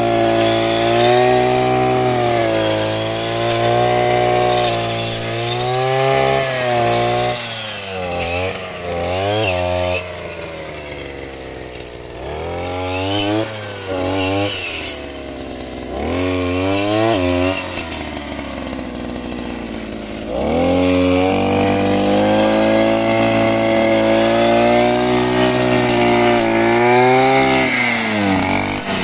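Small two-stroke brush cutter engine running at high revs while a 40-tooth circular saw blade cuts. The throttle is eased off and opened again several times, so the engine note drops and climbs back before holding high again.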